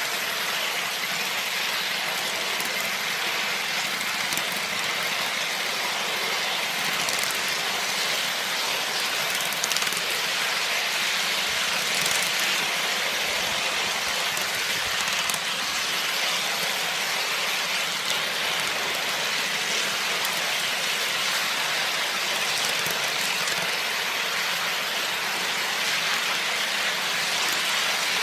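Live-steam scale locomotive with Walschaert valve gear running along its track, a steady hiss of steam and running noise with no distinct beat. It is running almost in mid-gear, at short cutoff, which its well-set valves allow.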